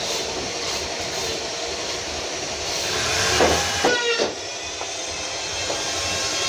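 Workshop power tools running with a steady hissing whir, with a short rising whine about three and a half seconds in.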